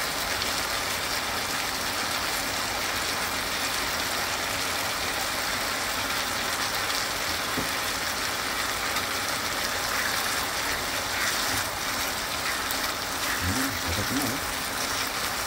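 Diced chicken and potatoes sizzling in a frying pan: a steady hiss.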